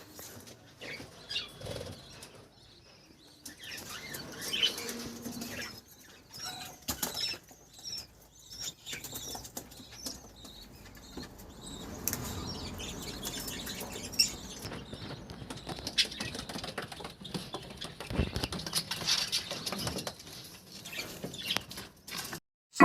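Budgies and cockatiels fluttering and flapping their wings in an aviary cage, in irregular bouts, with faint scattered chirps.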